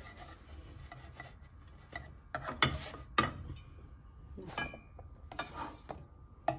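A slotted spatula scraping under and knocking against nonstick pans as small pizza bases are lifted from one pan and set down in another: several short knocks and scrapes, a couple with a brief metallic ring.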